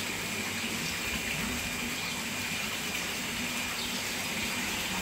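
Water running steadily into a concrete fish-rearing tank from an inlet pipe: an even, unbroken rushing.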